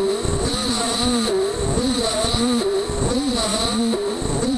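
Beaver HDZero CNC router milling aluminum tool plate. A steady high whine runs under lower machine tones that rise and fall every half second or so.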